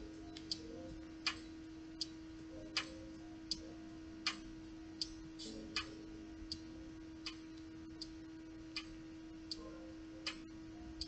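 Regular sharp ticks, about one every three-quarters of a second, over the steady hum of a noisy laptop fan.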